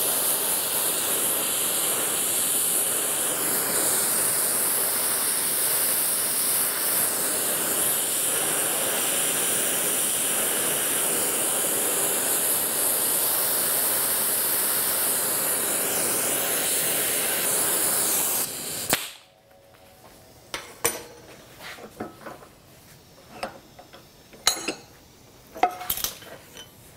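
Gas torch flame hissing steadily as it heats the pressed-on, swaged ball end of a vise handle to loosen it. The flame cuts off suddenly about 19 seconds in, followed by a scatter of light knocks.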